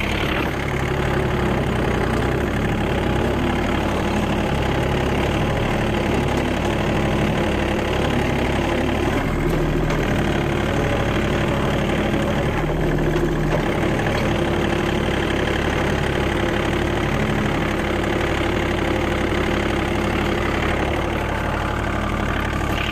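John Deere mini tractor's diesel engine running steadily as it pulls a cultivator between rows of banana plants, with small changes in the engine note about ten and thirteen seconds in.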